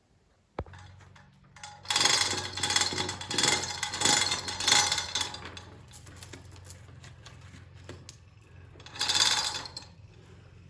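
An electric winch or hoist switched on with a click, its motor running with a steady hum while it moves a heavy timber beam. There is loud rattling and scraping for a few seconds, and again briefly near the end.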